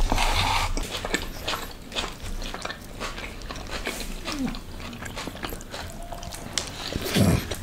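Close-miked eating sounds: a bite of paneer butter masala with paratha being chewed, with many small wet mouth clicks and smacks.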